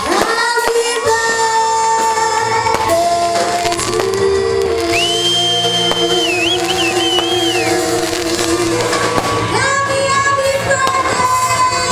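A song playing with singing: long held notes over a steady backing.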